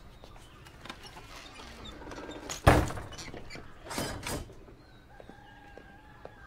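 A single heavy thunk about two and a half seconds in, followed about a second later by two quieter knocks, with faint high chirping near the end.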